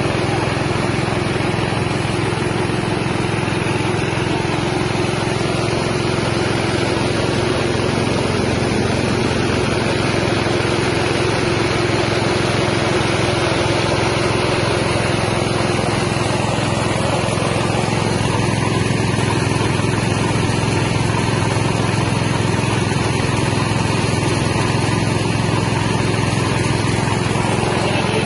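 Mini rice milling machine running steadily under its small engine, a constant mechanical drone with a hiss of grain and air through the mill.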